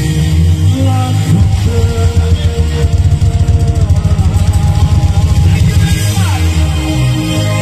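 Live band music played loud through a PA system: electric guitar, keyboard and drum kit over a heavy bass, with a fast pulsing beat through the middle.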